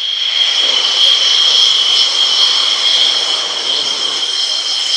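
MiG-29 Fulcrum's twin turbofan jet engines running at high power on the takeoff roll: a loud roar with a steady high-pitched whine over it.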